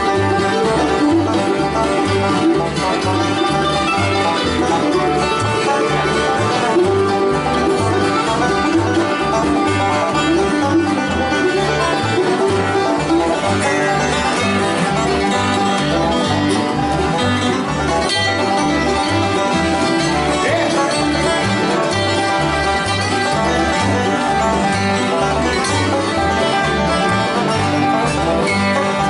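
Live bluegrass band playing: plucked strings over a steady bass line that alternates between two notes about twice a second.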